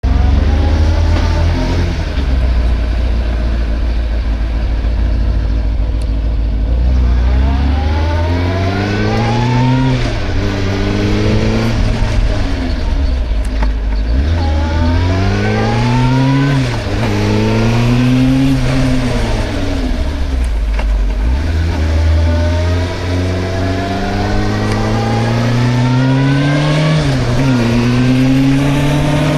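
Suzuki GSR 600's inline-four engine idling for several seconds, then pulling away and accelerating. The pitch climbs with each gear and drops back at each shift, several times over.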